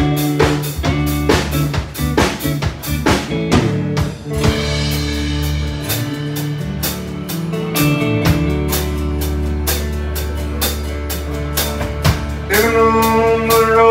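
Band music with drum kit, bass and guitar keeping a steady beat, the lead-in before the vocal. Near the end a sustained melody line comes in over the band.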